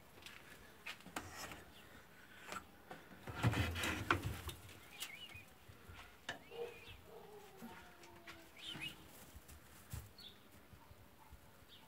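A wooden rabbit hutch door being unlatched and opened, with a clatter of knocks and rattling about three and a half seconds in, amid scattered small clicks. Small birds chirp faintly in the background.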